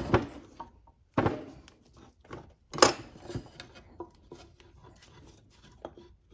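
Hand tools and metal engine parts clinking and knocking as an engine is worked on by hand, with two louder knocks about a second in and near three seconds.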